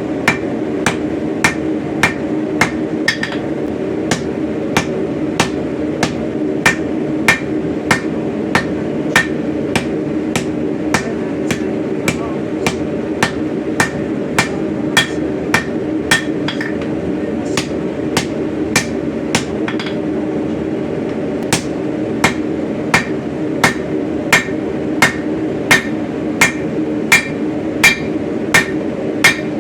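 Blacksmith's hammer striking steel on an anvil in a steady rhythm, about two blows a second, each with a short metallic ring, with a brief pause about two thirds of the way through. The strikes are the forging of an old hatchet head into an axe shape, and a steady hum runs underneath.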